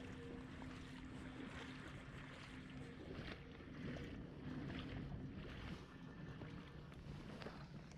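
Faint river water flowing, with wind on the microphone and a low steady hum underneath.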